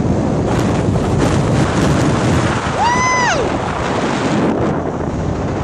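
Strong wind buffeting the microphone over rough sea washing against a pier's pilings. A single high call rises, holds and falls about three seconds in.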